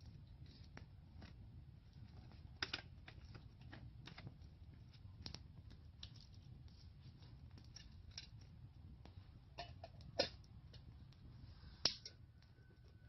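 Campfire wood crackling: faint, sparse, irregular sharp pops over a low steady rumble.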